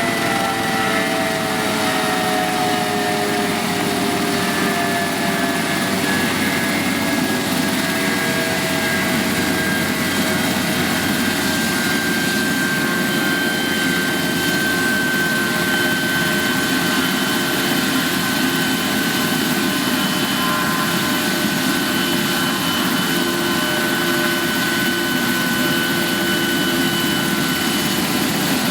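Eurocopter AS365 Dauphin rescue helicopter's twin turboshaft engines and rotors running: a steady turbine whine over the rotor noise. Several whistling tones sink slowly in pitch over the first half, then hold steady.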